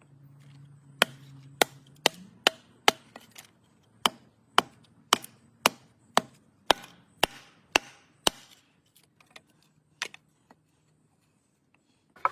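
Wood being chopped: about fourteen sharp knocks, roughly two a second for some seven seconds, then a few scattered strikes.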